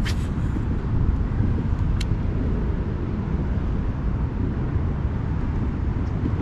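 Wind buffeting the microphone in a steady low rumble, with two sharp clicks, one at the very start and one about two seconds in.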